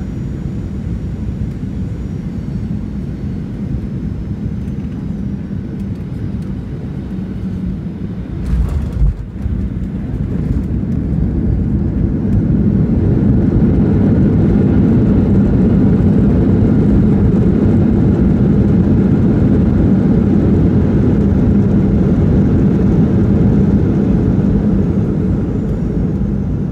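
Cabin noise of a Boeing 737-700 landing: steady engine and airflow noise, a short low thump about eight and a half seconds in as the wheels touch down, then the CFM56-7B engines' reverse thrust building to a loud, steady roar for roughly ten seconds and easing off near the end.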